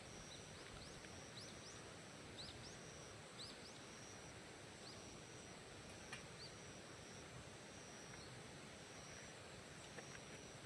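Quiet outdoor ambience: a faint steady hiss with a series of short, high, rising bird chirps in the first half and a single faint click about six seconds in.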